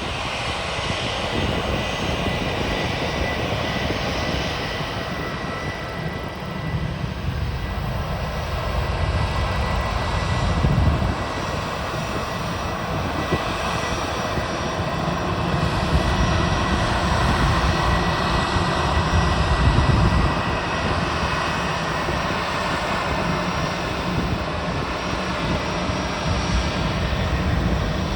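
Airbus A320 jet engines running, a steady roar with a thin high whine through it; the low rumble swells and eases a few times.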